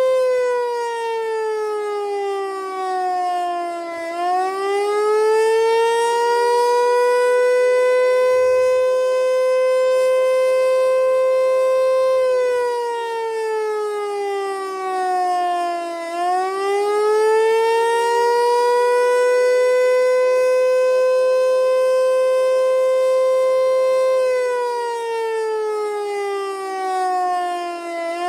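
Federal Signal Eclipse 8 electronic tornado siren sounding its wail on a monthly test. It holds a high note for a few seconds, then slides down and back up, repeating about every 12 seconds.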